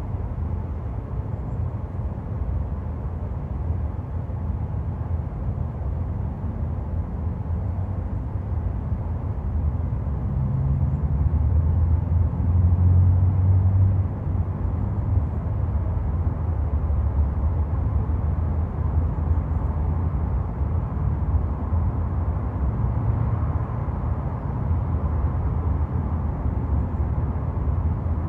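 Road traffic noise: a steady low rumble that swells about ten seconds in and drops back abruptly around the middle.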